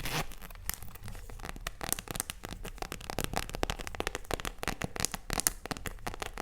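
Close-miked crinkling and crackling of handled packaging: a rapid, irregular run of crisp clicks.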